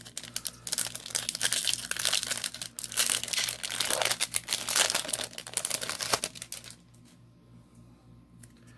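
Foil wrapper of a Yu-Gi-Oh booster pack crinkling and tearing as it is torn open by hand. The crackling runs for about six and a half seconds, then stops.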